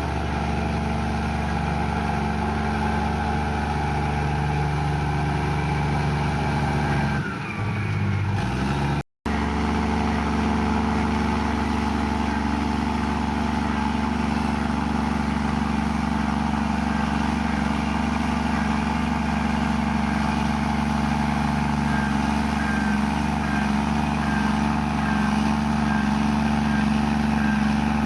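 Komatsu bulldozer's diesel engine running steadily, with a brief dip in the sound and a momentary cut-out between about seven and nine seconds in. Near the end a faint high chirp repeats regularly, about one and a half times a second.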